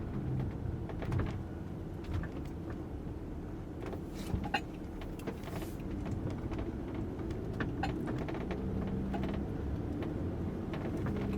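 Inside a moving vehicle: a steady low engine and road rumble, with scattered light clicks and rattles.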